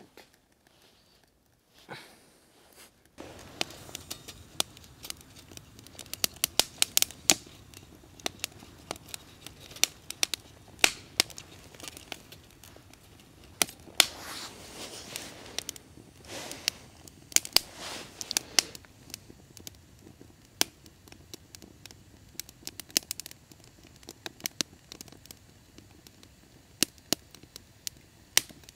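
Split-wood kindling fire crackling in a small folding metal stove, with many sharp, irregular pops and snaps over a low hiss. The crackling starts about three seconds in.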